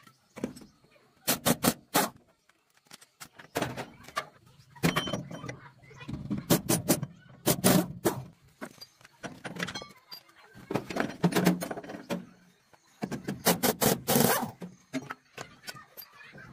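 Several clusters of sharp clattering knocks a few seconds apart: tool work on the thresher's wheel hub and undercarriage while the wheel is taken off.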